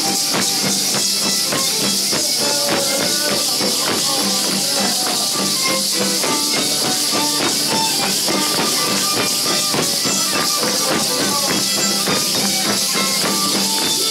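Music for a traditional Mexican danza: a melody over a constant, rhythmic shaking of rattles and a steady beat.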